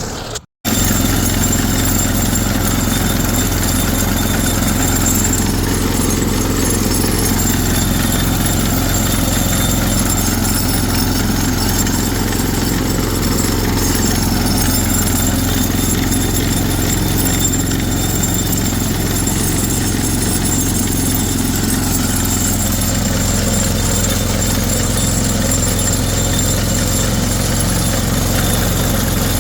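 An engine idling steadily, with a constant low hum and no change in speed.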